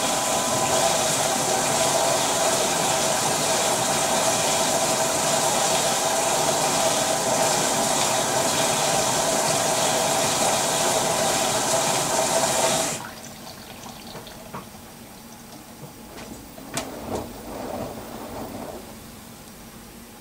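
Water rushing steadily through an LG VC2 AI DD 11 kg front-loading washer-dryer between wash phases, cutting off sharply about 13 seconds in. A few faint knocks follow in the quieter machine.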